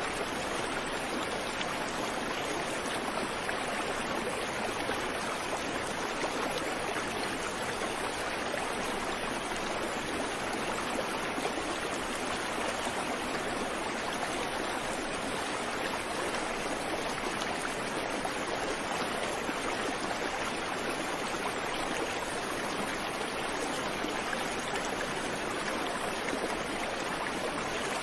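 Creek water flowing over rocks, a steady unbroken rushing and babbling with no birdsong.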